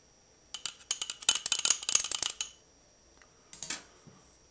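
Metal tools and fork parts clinking and rattling together: a rapid flurry of clinks for about two seconds, then a short rattle near the end.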